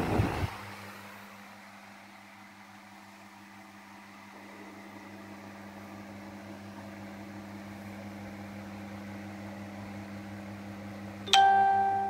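Imarflex table fan running with a steady low motor hum and soft airflow hiss; wind buffeting from the blades stops in the first half second. Near the end comes a loud electronic beep-tone from the fan's control panel.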